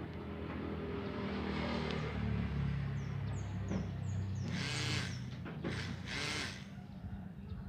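Small hobby DC motor running and spinning a razor blade, a steady buzzing hum that wavers slightly in pitch, with two brief louder hissing bursts about two-thirds of the way through.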